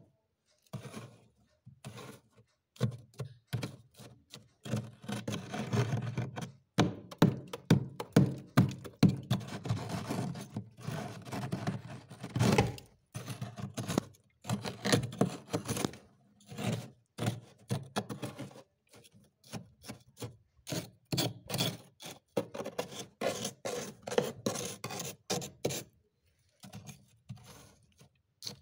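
Thick frost being scraped and knocked off the inside of a freezer: quick runs of scraping strokes and thunks, with short pauses between runs.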